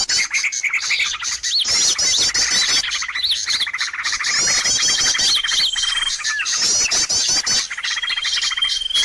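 Bird-lure (pikat) recording: a busy chorus of small birds chirping and calling, with runs of rapid high arched notes and a held high whistle that come back every few seconds, like a looped track.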